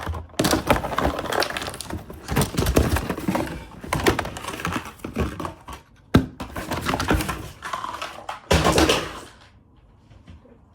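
Cardboard box and plastic packaging of a toy car being handled and pulled open, rustling and crackling in uneven spurts, with a sharp snap about six seconds in. The handling stops near the end.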